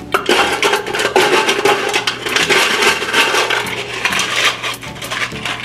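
Ice cubes clattering into a glass as it is filled with ice: a dense, continuous run of quick clinks.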